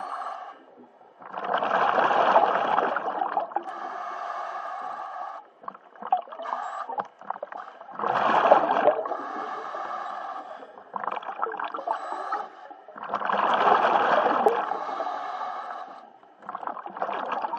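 Scuba diver breathing through a regulator underwater: each inhale is a steady hiss with a pitched hum, and each breath ends in a louder rush of exhaled bubbles, three exhales about five to six seconds apart.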